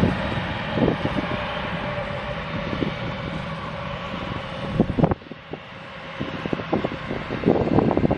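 Jet airliner engine noise, a steady rush with a faint whine, that cuts off abruptly about five seconds in. Wind buffeting the microphone follows in gusts, growing stronger toward the end.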